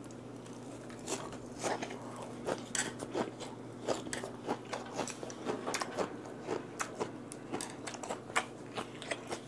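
Close-miked chewing of a big mouthful of vinegar-cured mackerel and radish sprouts: irregular wet crunches and mouth clicks, a few a second.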